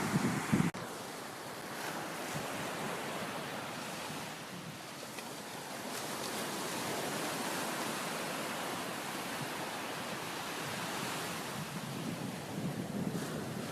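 Sea waves washing onto a beach, a steady hiss of surf. Wind buffets the microphone with low rumbles in the first second, stopping abruptly, and again near the end.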